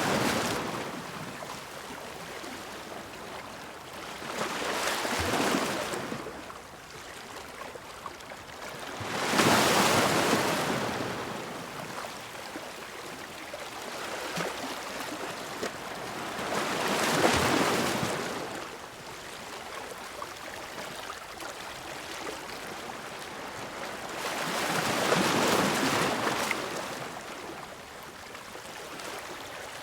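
Ocean waves washing onto a beach, the surf noise swelling and fading in slow surges, four times, several seconds apart.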